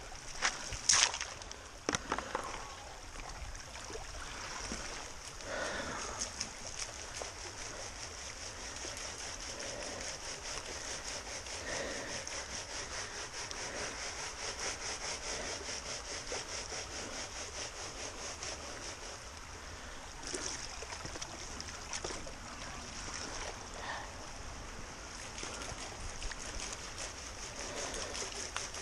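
A plastic gold pan of gravel being swirled and shaken in creek water: water sloshing and gravel grinding against the pan, over the steady run of the creek. A few sharp rattles of gravel in a classifier sieve open it.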